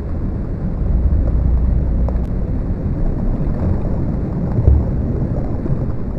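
An audio file played back by a Max patch's multi-track sound-file player: a steady, dense rumbling noise, weighted to the low end.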